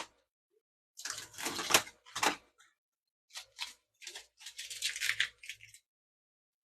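Irregular bursts of rustling and scraping, as of objects being handled and shifted about, in two spells of a second or two each.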